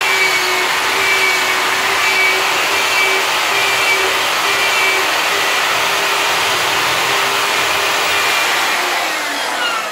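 Corded electric drill running steadily, with a constant whine, spinning a sandpaper-wrapped iron rod that polishes the forcing cone ('campo neutro') of a revolver barrel. Near the end it is switched off and its whine falls as the motor winds down.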